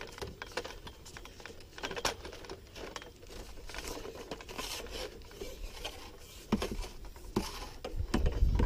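Telescopic aluminium pole being pushed up by hand, its sections scraping and clicking against each other as they extend, with scattered knocks from the grip. A low buffeting of wind on the microphone near the end.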